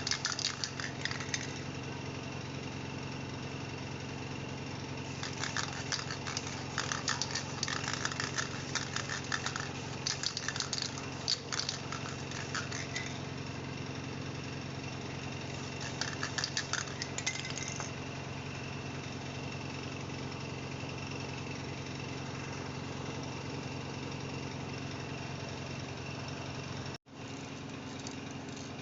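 Bursts of rapid scratching strokes over a steady mechanical hum. The sound cuts out for a moment near the end.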